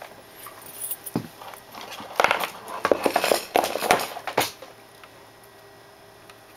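Clattering and rustling as cables are handled and moved around a Pioneer double-DIN head unit: a burst of knocks and rattles starting about two seconds in and lasting about two seconds, with a single faint knock just before.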